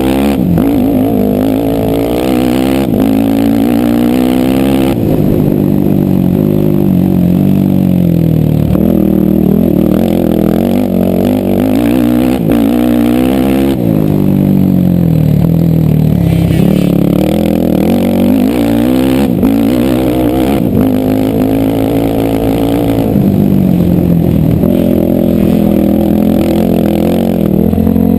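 Racing ATV engine running loud, revving up and down as the throttle is worked, its pitch rising and falling every few seconds.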